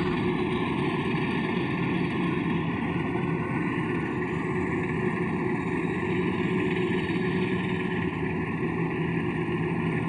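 Rice combine harvester's engine and threshing machinery running steadily while cutting rice: a constant drone with a steady hum.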